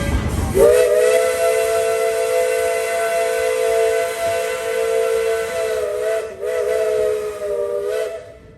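Steam whistle of Tweetsie Railroad locomotive No. 12 blowing one long blast, a chord of several notes that slides up to pitch as it opens, falters briefly near the end and cuts off, with a hiss of steam under it.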